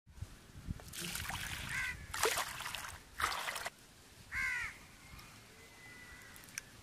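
Crows cawing: several harsh, short caws in the first four and a half seconds, then fainter.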